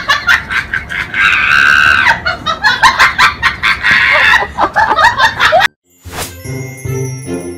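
A person shrieking with laughter in rapid high-pitched pulses and long squeals, cut off abruptly about five and a half seconds in. After a moment of silence, music with chiming notes starts.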